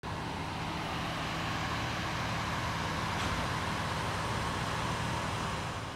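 A vehicle engine idling steadily: an even, low running hum with no revving.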